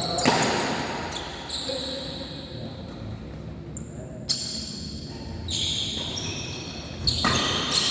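Badminton play on an indoor court: sharp racket hits on the shuttlecock, one clear crack about four seconds in, among many short high shoe squeaks on the court floor, with the echo of a large hall.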